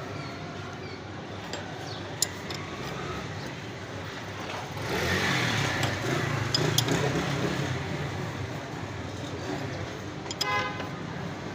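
Road traffic going by, one vehicle swelling louder for a few seconds around the middle, with a brief horn toot near the end. A few sharp metal clicks sound over it.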